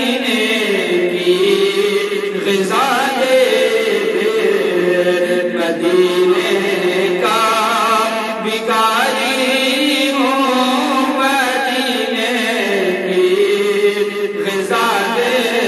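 A man singing a naat, an Urdu devotional song, solo into a handheld microphone: long held notes that waver and bend in pitch, in a chanting style.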